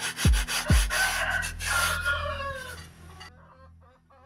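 Sandpaper rubbing in even strokes on a balsa wing, stopping about three seconds in. Over it a rooster crows once for about two seconds, and chickens cluck faintly near the end.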